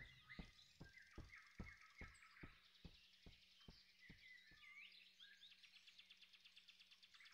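Faint forest ambience: a series of short chirping ticks, about two and a half a second, fading out over the first five seconds, with a faint high trill later on.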